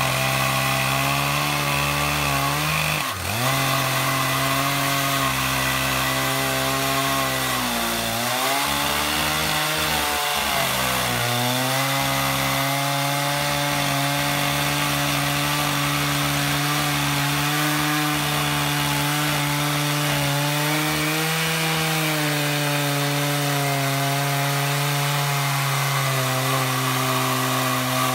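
Two Stihl 088 two-stroke chainsaw powerheads running at full throttle on an 87-inch bar in a double-ended Alaskan chainsaw mill, ripping through a large redwood log. The engine note is steady, dipping briefly in pitch about three seconds in and again around eight and ten seconds before recovering.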